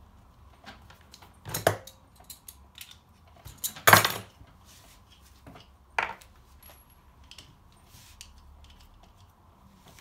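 Scattered clicks and knocks of hard equipment being handled on a tabletop, the loudest about four seconds in, with a few fainter ticks in between.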